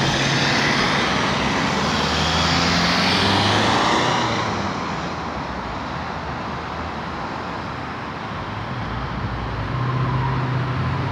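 Road traffic on a busy street: cars driving past, loudest over the first four seconds as a vehicle goes by close, then a softer, steady rumble of engines that swells again near the end.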